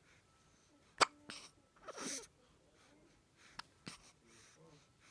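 Baby hiccupping: a sharp hiccup about a second in, the loudest sound, a short breathy sound around two seconds, and further sharp hiccups near four seconds.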